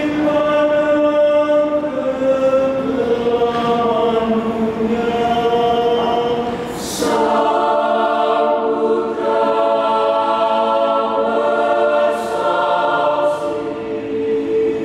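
Mixed choir of men's and women's voices singing in parts, holding long sustained chords. About halfway through the choir comes in together on a fuller, louder chord.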